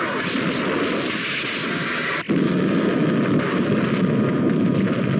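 Television sound-effect explosion: a rushing blast, then a sudden heavier blast about two seconds in that keeps rumbling.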